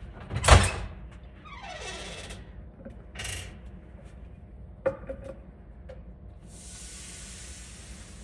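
Microwave oven being set going: its door shut with a thud, a few short keypad beeps, then the steady hum and hiss of the oven running.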